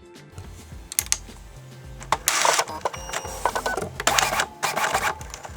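Printer mechanism recording played sped up as a robot-like sci-fi effect: a couple of sharp clicks, then several short bursts of fast mechanical whirring and clattering.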